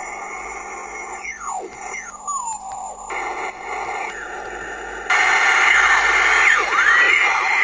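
Shortwave SSB radio reception through a small loudspeaker: hiss with steady whistles and sliding, squealing tones from off-tune sideband signals. The sound changes suddenly about three and five seconds in, getting wider and louder after the second step, as the Raspberry Pi Pico DSP audio processor's filter and noise-reduction settings are switched.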